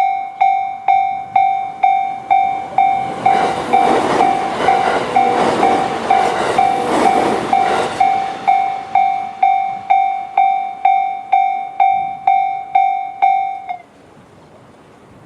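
Level-crossing warning bell, the JR standard electronic tone, ringing about twice a second while an E129-series electric train passes through the crossing for about five seconds, its wheels clicking over the rails. The bell cuts off suddenly near the end as the crossing clears.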